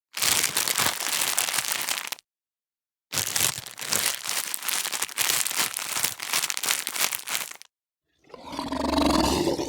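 Crinkling, crackling sound effect in two stretches of about two and four seconds with a short silence between. About eight seconds in, a loud animal roar begins.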